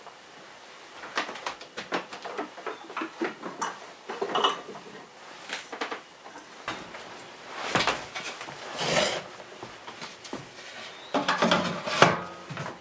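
Kitchen items and tools being handled, moved and set down on a wooden counter and shelves: scattered clinks and knocks with a couple of brief swishes, then a quick run of knocks with a loud one near the end.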